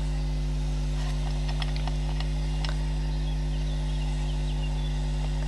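Steady electrical hum, with a few faint small metallic clicks in the first half as a metal safety pin and charm are handled.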